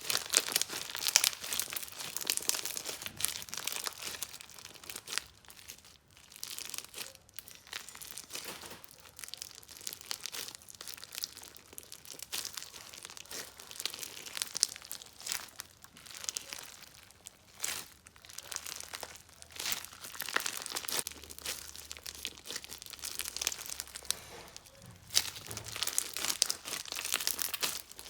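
Slime being squeezed and pressed by hand, giving a dense, continuous run of fine crackles and crinkles with louder clusters of pops now and then.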